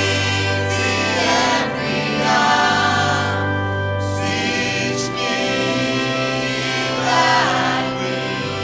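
A church choir and congregation singing a slow hymn with musical accompaniment, in long held notes.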